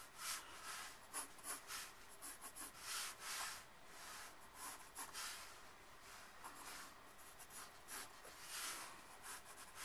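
Pencil drawing lines on paper: a series of faint scratching strokes of varying length, one after another.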